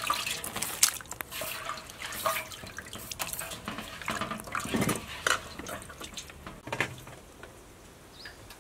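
Water splashing and dripping in irregular spurts as washed raw chicken and unlaid egg yolks are lifted from a basin of water into a plastic colander to drain.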